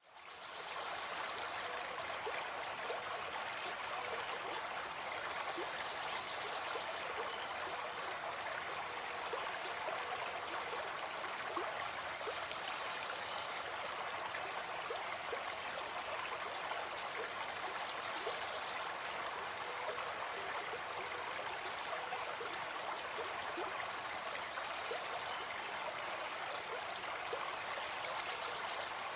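A small stream babbling and trickling steadily, with fine splashing and gurgling, fading in over the first second.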